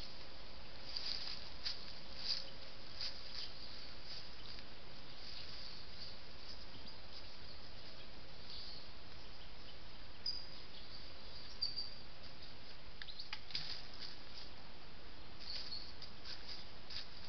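Steady hiss from a trail camera's built-in microphone, with faint scattered rustles and ticks from the woodland floor. There are two short high chirps, about ten and eleven and a half seconds in.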